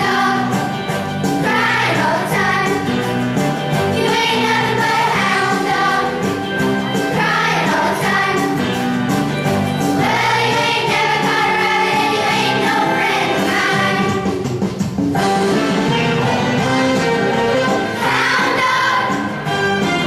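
Children's choir singing a rock and roll song in unison over instrumental accompaniment with a steady beat.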